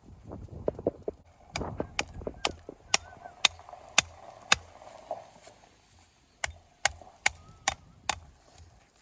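Hammer striking stone, dressing and shaping it: a run of seven sharp blows about two a second, a pause, then five more.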